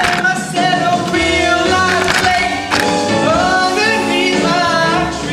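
Music: a vocal group singing held notes over instrumental accompaniment with a steady bass line, and a couple of sharp hits partway through.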